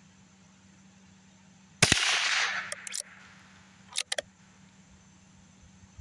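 A single shot from a Rossi RB22 .22 bolt-action rifle about two seconds in, its report trailing off for about a second. A couple of sharp clicks follow about two seconds later, as the bolt is worked to chamber the next round.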